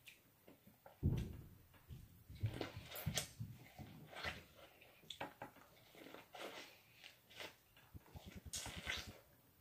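Biting and chewing corn on the cob close to the microphone: irregular mouth clicks and kernel crunches, with one dull thump about a second in.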